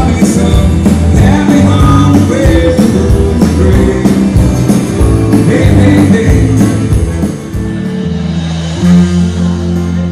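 Rock band playing a song with singing, guitar and a steady drum beat; about seven seconds in the drums drop out and a low chord is held.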